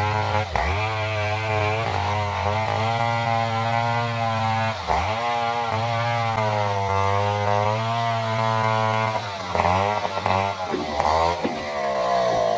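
Stihl 070 two-stroke chainsaw running at high speed, ripping lengthwise through a durian log. The engine note is steady with two brief dips in pitch, and it wavers up and down near the end.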